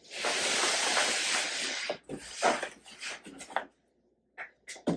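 Cardboard shipping box dragged across the floor: a steady scraping rustle for about two seconds, then a few shorter rustles and light knocks as it is set in place.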